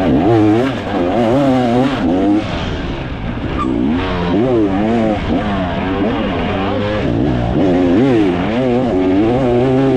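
2024 KTM 300 XC's two-stroke single-cylinder engine being ridden off-road, its revs rising and falling over and over as the throttle is worked.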